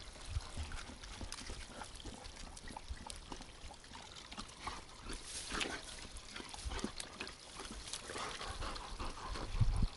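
A small mountain spring trickling while two dogs drink and splash at it, with scattered lapping and splashing sounds over a low rumble of wind on the microphone.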